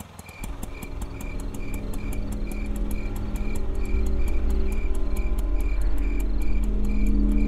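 A low, droning horror score swells in steadily over continuous cricket chirping.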